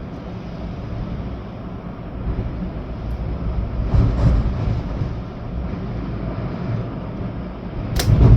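Storm wind gusting with rain, the wind buffeting the microphone as a low rumble. Gusts swell about four seconds in and again near the end, with a sharp knock just before it ends.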